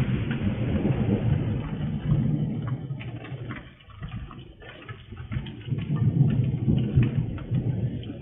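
Rolling thunder: a low rumble that dies down about three and a half seconds in and swells again a second or two later. Rain falls throughout, with scattered drips tapping.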